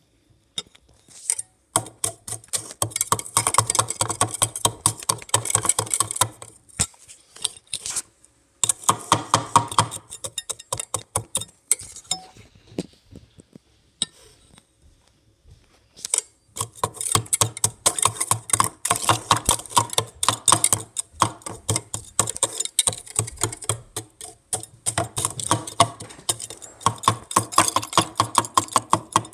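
Popcorn and ice rattling and clinking against a cup in fast, dense clicks, probably as they are worked with a utensil. The rattling comes in three long spells broken by two short pauses.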